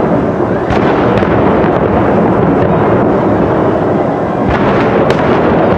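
Large fireworks display: a dense, continuous rumble of many shells bursting at once, with a few sharper cracks standing out about a second in and again near the end.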